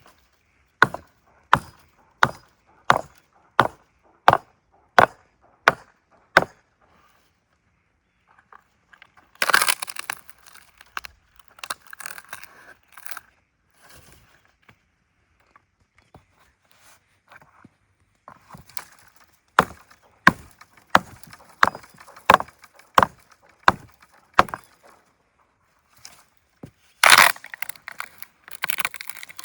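Wood being chopped with a blade in two steady runs of sharp strikes, about a stroke and a half a second. Between and after the runs come louder, noisier stretches of wood breaking.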